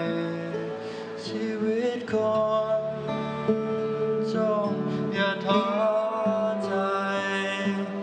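Live acoustic band music led by acoustic guitar, with a held melody line that slides up and down between notes.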